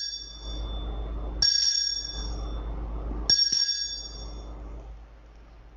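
Altar bell rung at the elevation of the chalice during the consecration. A bright, clear ring is already sounding and is struck twice more, about a second and a half in and a little over three seconds in, each ring dying away over about a second.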